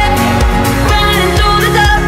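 Electronic pop music with a steady beat of about two beats a second and a gliding melody line, no sung words.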